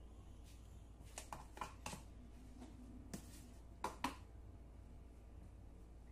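A handful of light clicks and taps from a table knife and bread slices against a plate as sandwiches are handled, clustered in the first four seconds, over a faint steady low hum.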